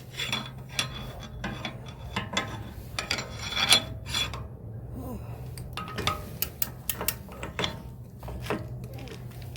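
Hand tools and metal parts clinking and scraping against the axle hub: a scattered series of light clicks, knocks and rubs. A steady low hum runs underneath.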